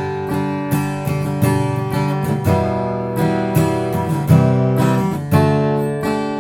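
Background music: a strummed acoustic guitar with a steady rhythm of chord strokes.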